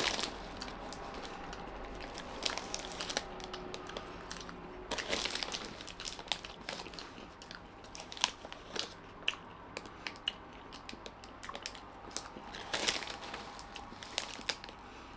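Crunching and chewing on Andy Capp's Fire Fries snack sticks, with the snack bag crinkling now and then. Irregular crunches and crackles throughout, louder for a moment about five seconds in and again near thirteen seconds.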